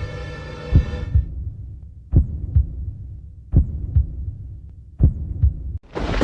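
Heartbeat sound effect: paired low thumps repeating about every 1.4 s, over a held droning tone that stops about a second in. A sudden loud rumbling crash breaks in just before the end.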